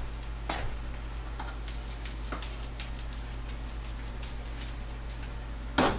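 A utensil stirring mashed potatoes in a pot: a few faint clicks and scrapes, then a louder clatter against the pot near the end, over a steady low hum.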